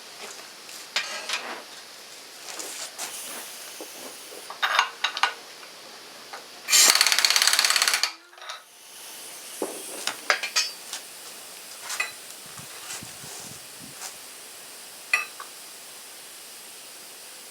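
Impact wrench hammering in short bursts, then one longer burst of about a second and a half near the middle, turning a pulley installer tool that presses a power steering pulley onto the pump shaft for its last fraction of an inch. Sharp metal clanks of tools come between and after the bursts.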